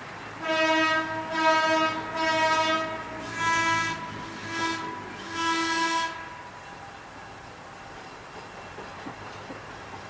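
Diesel locomotive air horn blowing a series of about six blasts over some six seconds, the fifth one short, followed by the low rumble of the train.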